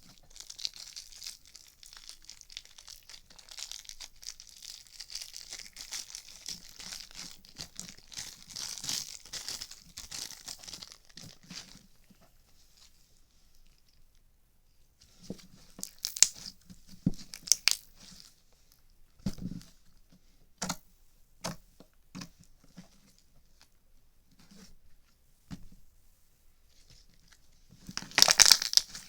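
Crinkly rustling and crackling for the first dozen seconds, then, after a short lull, scattered sharp pops and clicks, with a loud cluster of them near the end.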